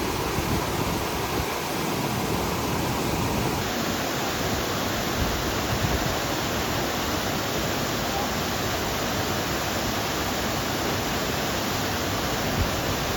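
Waterfall close by: a steady, unbroken rush of falling water.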